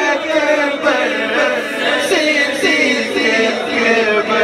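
Men singing a devotional song together without accompaniment, a lead voice at a microphone with the gathering joining in.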